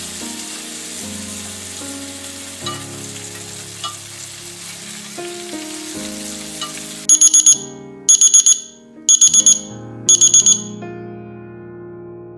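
Food sizzling in a pan over soft background music, then an electronic timer alarm beeping in four quick bursts about a second apart.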